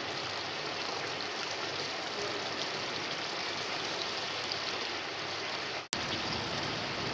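Mutton karahi sizzling steadily as the meat and gravy fry in oil over full heat, at the bhuna stage where the water is being cooked off. The sound cuts out for an instant with a click near the end.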